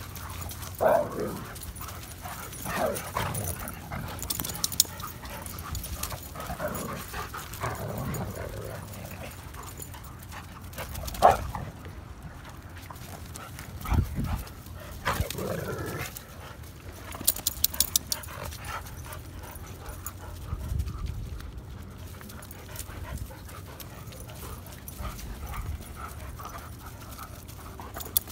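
Several dogs playing rough together, with short, scattered vocal sounds from the dogs amid their running, and one louder sudden sound about eleven seconds in.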